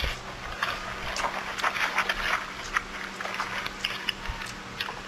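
Two people chewing and smacking their lips while eating chicken and rice by hand: a run of short, irregular clicks, thickest about two seconds in.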